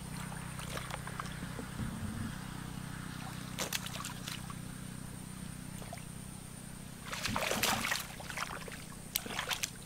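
Shallow muddy water splashing and sloshing as hands grope through a paddy-field ditch for fish, in scattered bursts with the loudest about seven seconds in. A steady low hum runs underneath.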